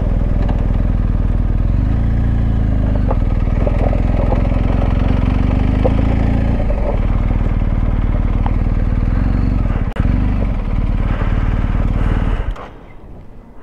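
Motorcycle engine running steadily at road speed, with wind rushing over the microphone. About ten seconds in the sound dips briefly, and near the end it drops away sharply.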